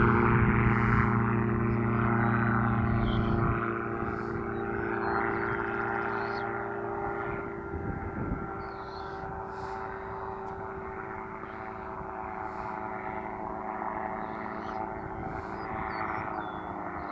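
Paraplane (powered parachute) engine and propeller droning overhead with a steady engine pitch. It gets noticeably quieter about three and a half seconds in as the craft moves away, then swells slightly near the end.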